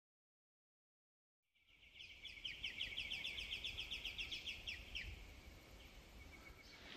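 Silence for about a second and a half, then a bird calling: a rapid run of repeated high chirping notes, about seven a second, lasting about three seconds before it fades.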